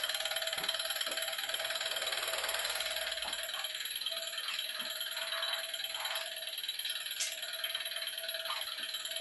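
Small Stirling engine built from an old computer hard drive, running steadily with an even rattle and a steady tone beneath it, while it drives a small dynamo.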